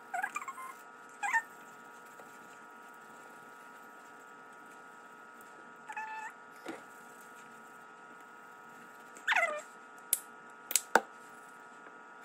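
Short high-pitched animal calls, four of them, several sliding down in pitch, from a pet in the house. A few sharp clicks near the end.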